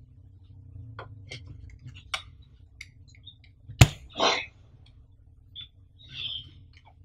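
Light clicks and taps as a smartphone and a plastic 3D screen-magnifier stand are handled, with one sharp plastic clack just before four seconds in, followed by a short scrape as the phone is set into the stand.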